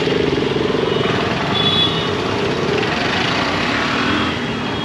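Busy city road traffic: engines of passing motorcycles, cars and buses, with one engine louder close by in the first second or so.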